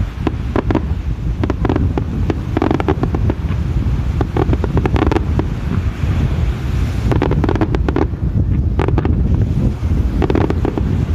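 Wind buffeting the microphone in a steady low rumble, with many short, sudden pops from distant fireworks bursting.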